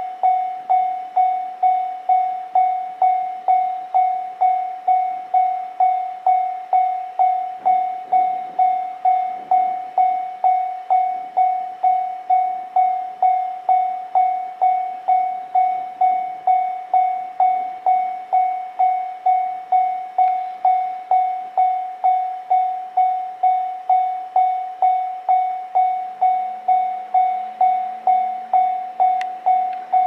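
Japanese railway level-crossing warning bell ringing with its steady electronic "kan-kan" tone, about two strikes a second, each strike dying away quickly. It is sounding because a train is approaching and the barriers are down.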